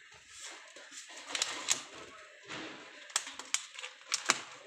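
A plastic bottle of bird seed clicking and knocking against the wire mesh of a bird cage as it is lowered into place. The knocks come singly and in quick pairs, several over a few seconds.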